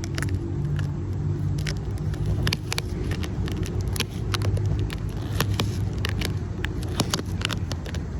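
Scattered crinkles and clicks of packaging being handled during an unboxing, over a steady low hum.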